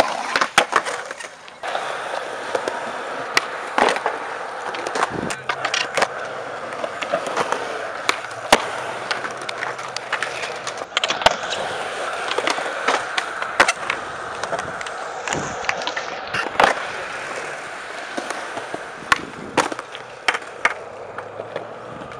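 Skateboard wheels rolling on rough concrete in a steady rumble, broken by many sharp, irregular clacks and smacks of the board popping, hitting ledges and landing.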